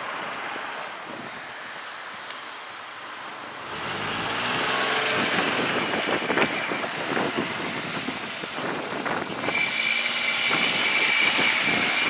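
Meitetsu 3500 series electric train passing the level crossing. Its running noise swells about four seconds in, with a rapid clatter of wheels, and a high steady tone joins near the end.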